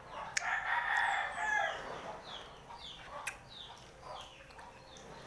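A rooster crowing about the first second and a half. A run of short, high, falling chirps follows, a few each second, with a couple of sharp clicks.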